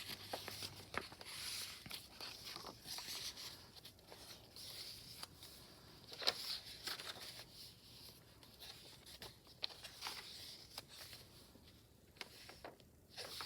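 Paper rustling with scattered soft clicks and taps as the thick pages of a handmade nature journal are turned and handled, with a sharper tap about six seconds in.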